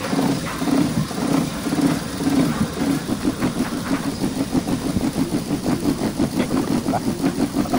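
Toyota Corolla Altis engine idling roughly, its running throbbing unevenly about three times a second: the shaking, hunting idle of a misfiring engine.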